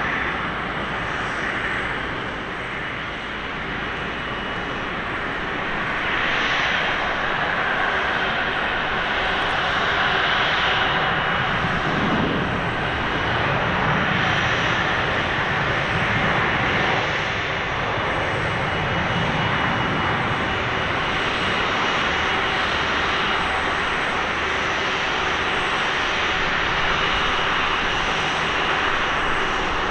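Airbus A330-300 jet engines running at low taxi thrust: a steady rush of jet noise with a faint high whine, swelling a little about six seconds in.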